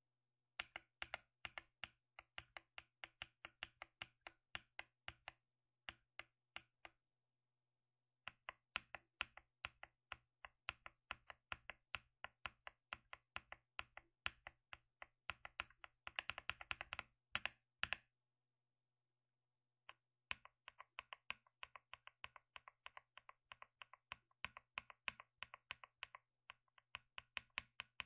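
Typing sound test on a mechanical keyboard fitted with Akko switches: keystrokes in irregular runs, with two short pauses, about 7 and 18 seconds in, and a quick flurry of keystrokes around 16 to 17 seconds in.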